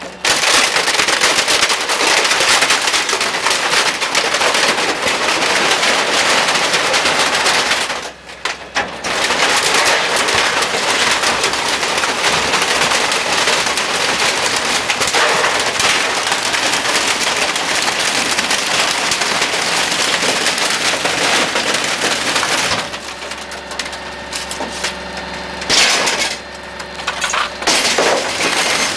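Garbage truck compactor crushing TVs, electronics and glass: a dense, continuous crackling and popping of breaking glass and plastic, with a brief lull about eight seconds in. Near the end the crackling thins for a few seconds and a steady mechanical hum comes through before the crunching picks up again.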